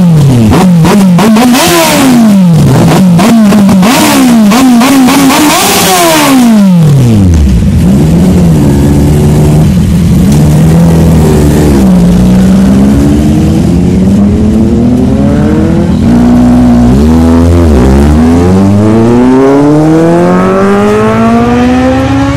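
Kawasaki inline-four superbike engines revved hard in quick throttle blips, the pitch jumping up and dropping repeatedly for about six seconds. The engines then settle to a lower, steadier note, and a slower, longer rev climbs over the last several seconds.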